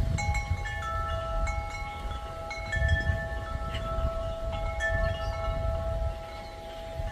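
Wind chimes ringing in a breeze: several tuned tones struck at irregular moments, each ringing on for seconds and overlapping, over low wind rumble on the microphone.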